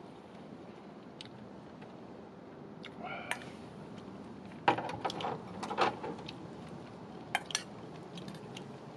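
Eating utensils clinking against dishes during a meal: a few sharp clicks through the middle of the stretch, over a steady low hiss. A brief high-pitched vocal sound comes about three seconds in.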